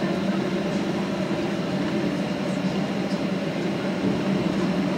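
Steady cabin noise of a Boeing 737-800 taxiing, heard from inside the cabin: the CFM56 engines at idle give an even low hum over a constant hiss.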